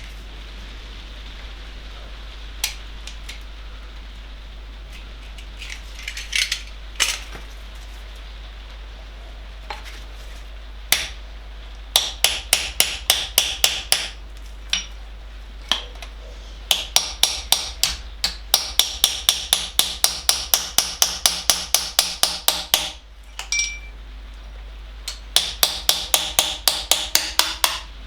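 Rapid hammer blows on a metal tool driven against a core plug in a classic Mini's A-series engine block, knocking the plug out. There are a few single knocks at first, then runs of quick metallic strikes at about five a second.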